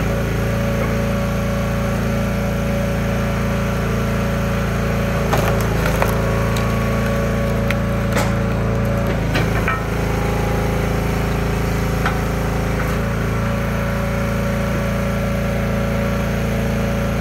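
Small engine of a log splitter running steadily, with several sharp cracks and snaps of wood splitting about five to ten seconds in.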